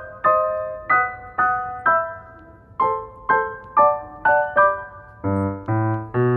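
Background piano music: a light melody of single struck notes, about two a second, each fading, with lower bass notes coming in about five seconds in.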